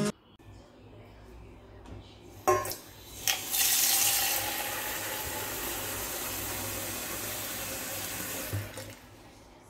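Water running from a kitchen tap. Two knocks come at about two and a half and three seconds in, then the water flows steadily as a hiss and cuts off near the end.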